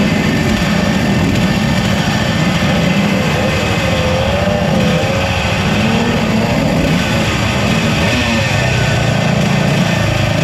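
Yamaha TZ125 125cc two-stroke single-cylinder race bike engine running, its pitch wavering up and down as the revs change.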